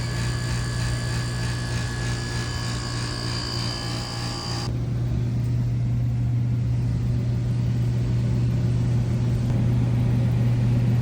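Steady low motor hum, with higher whining tones over it that cut off suddenly about four and a half seconds in while the hum carries on.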